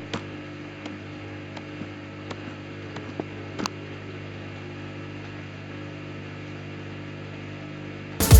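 Samsung Eco Bubble washing machine running: a steady motor hum with light clicks a little more than once a second, one of them louder about three and a half seconds in. A sudden loud burst of sound cuts in at the very end.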